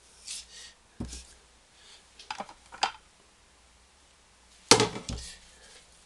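Knocks and clicks of painting gear being handled on a concrete floor: a wooden paperweight straightened on the paper and a paint-mixing dish set down. A dull thump about a second in, a few light clicks, then the loudest knock near the end.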